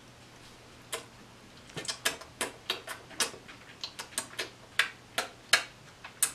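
Wet lip smacks and mouth clicks from someone savouring a sip of tea. They start about a second in and go on as a quick, irregular run of sharp clicks.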